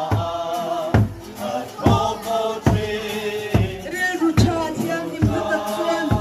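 A group of people singing together over a steady drum beat, struck a little more than once a second.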